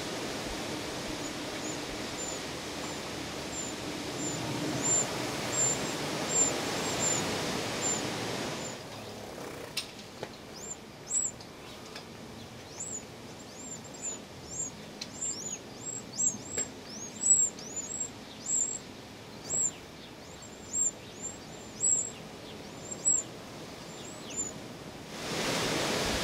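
Eurasian wren nestlings begging: a long run of thin, very high chirps, each a short note sliding downward, sparse at first and coming fast and loud from about ten seconds in. A steady hiss lies under the first nine seconds or so.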